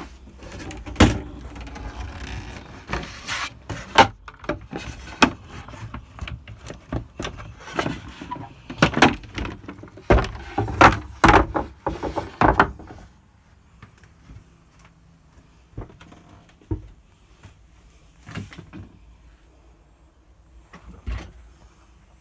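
Wooden cabin panels and boards being handled and moved: a busy run of sharp knocks, clacks and scraping for about 13 seconds, then a few scattered knocks.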